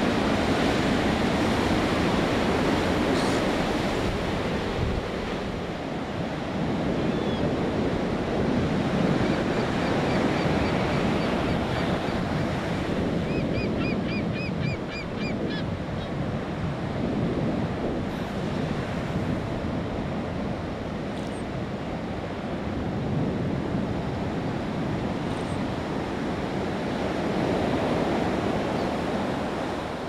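Ocean surf washing onto a beach, a steady rush that swells and eases. From about nine to fifteen seconds in, a bird calls in a fast series of short high notes.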